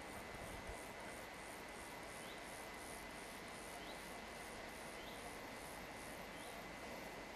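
Faint outdoor background hiss with insects chirping high and rhythmically, about three pulses a second, and a short rising chirp repeating every second or so.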